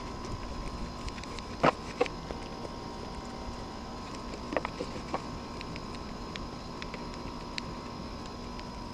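Paintbrush strokes on a wooden beehive body over a steady background hum, with a few light knocks, twice in the first two seconds and twice more about halfway through.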